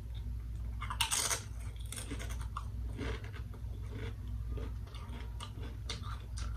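A person biting into a crunchy Paqui ghost pepper tortilla chip with a loud crunch about a second in, then chewing it in a run of short crisp crunches, over a low steady hum.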